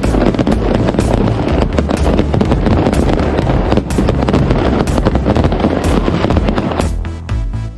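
Fireworks bursting in a rapid crackling barrage over music with a steady low bass; about seven seconds in the bangs thin out and the music carries on.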